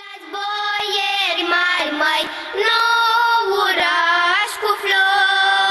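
A group of girls singing a Romanian colind (Christmas carol), with long held notes that slide into one another.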